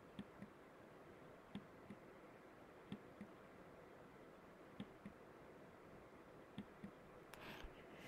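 Near silence: room tone with faint short clicks, mostly in pairs, every second or two.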